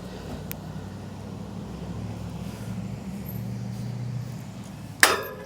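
Steady low engine hum of a vehicle running nearby, swelling a little partway through. About five seconds in comes one sharp metallic strike with a short ring: a hand chop knocking the tower section down into its joint.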